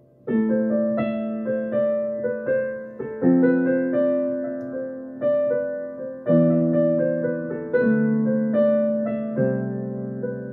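Solo piano music: a gentle, slow melody over chords, each note struck and left to ring and fade, starting a moment after near silence.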